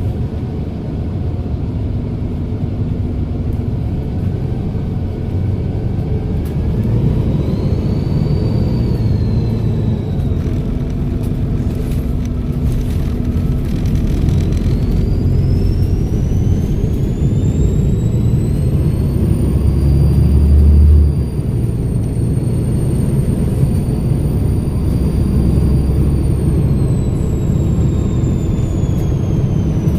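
Volvo B7RLE bus's turbodiesel engine running under way with a low rumble. A high turbocharger whistle briefly rises and falls early on, then climbs again about halfway, holds, and falls away near the end. The low rumble swells and then drops suddenly about two-thirds of the way through.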